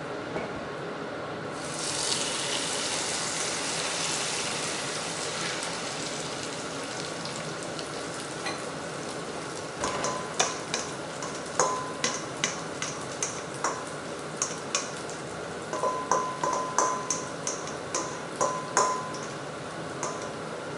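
Hot oil sizzling in a frying pan, the sizzle jumping up suddenly about two seconds in and easing a few seconds later. From about halfway there are irregular sharp clinks of a utensil, some of them ringing, about two a second.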